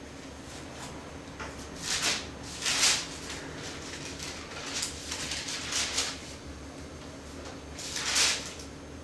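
Thin Bible pages being turned and leafed through by hand: a few soft rustling swishes, the loudest about two and three seconds in and again near the end, over a faint steady hum.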